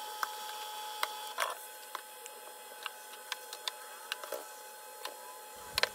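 Faint scattered clicks and light taps from a metal ladle against plastic cups as custard is poured, over a faint steady hum with a thin held tone.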